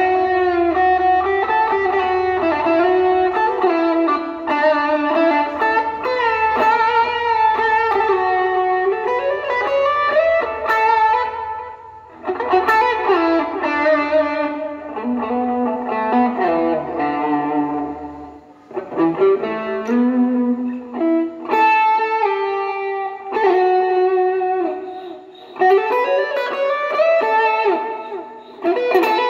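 PRS-style electric guitar played through a Mosky overdrive pedal: a lead line of sustained, overdriven notes with slides and string bends, broken by short pauses about twelve, eighteen and twenty-five seconds in.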